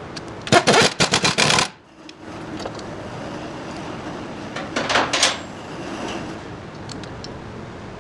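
Two bursts of rapid metallic rattling from tool work on a car's front suspension, the first about a second long and the second shorter, near the middle.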